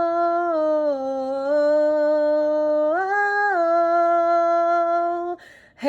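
A woman's voice singing unaccompanied: one long wordless line held on a few notes that step down, rise and fall again, ending with a breath about five and a half seconds in.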